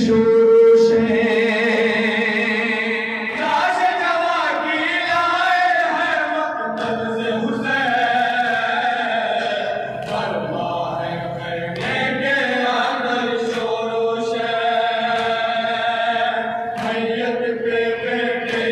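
A group of men chanting a Shia noha (mourning lament), long held, wavering notes sung together over microphones, with occasional sharp slaps of matam (chest-beating) from the mourners.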